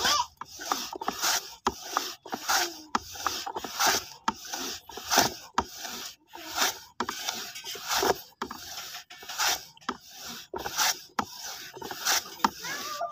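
Wooden hand banana slicer (pasah) worked back and forth, a wooden block sliding over the blade and shaving banana into thin chip slices: wood rubbing and scraping on wood in regular strokes, about two a second.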